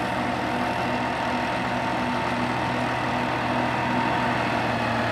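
International Harvester tractor engine running steadily at idle, a low hum with a thin, steady high tone over it.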